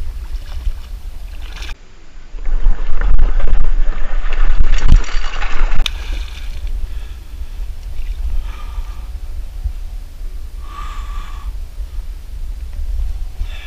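Water splashing and churning as a hooked muskie thrashes at the surface beside a kayak. The splashing is loudest for about four seconds starting a couple of seconds in, then quieter.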